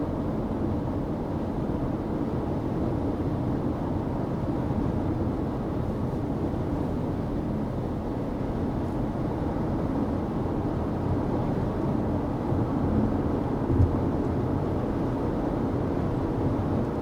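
Steady road noise of a vehicle driving at highway speed, heard from inside the cabin: an even rumble of tyres and engine, with one short thump about fourteen seconds in.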